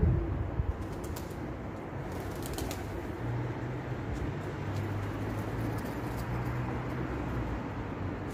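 Street ambience: steady traffic noise, with a low engine hum for a few seconds in the middle and a short low thump at the very start.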